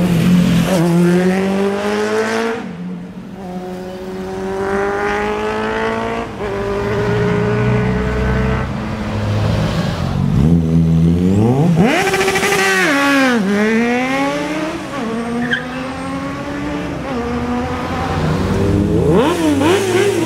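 Inline-four sport motorcycles, among them a Suzuki GSX 650F and a Honda CBR 600F, accelerating hard away one after another. Each engine note climbs steeply and drops back at the gear changes, and there is a short rev-up and fall-off about two-thirds of the way through.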